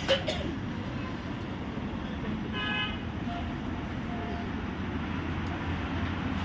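Steady vehicle engine and road rumble, with one short horn toot about two and a half seconds in.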